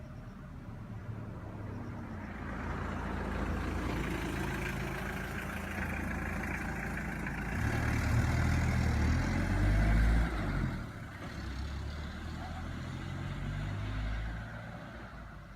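A motor vehicle's engine rumbling as it goes by, building up, loudest about 8 to 10 seconds in, then dropping off sharply.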